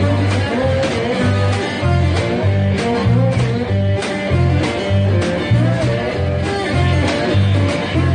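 Blues played on dobro, guitar and drums: the dobro's slide notes glide and waver over a low repeating bass figure and a steady drum beat.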